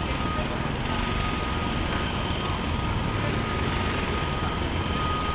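Steady city street noise of traffic and construction: a low rumble under an even hiss, with a constant thin whine.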